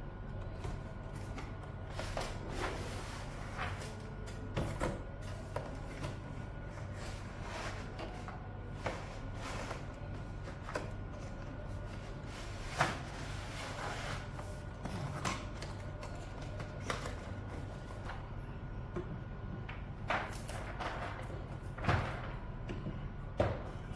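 Typing on a mechanical keyboard fitted with PBT dye-sublimated keycaps: irregular keystroke clacks with a few louder strikes, over a steady low hum.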